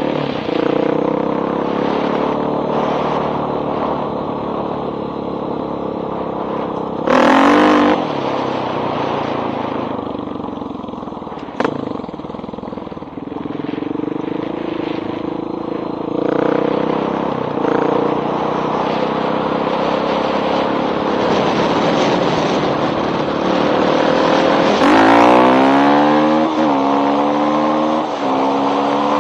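1985 Honda XR350R's single-cylinder four-stroke engine running through a loud pipe while riding, the revs rising and falling. Near the end it revs up hard, the pitch climbing and then dropping back in steps, as at gear changes.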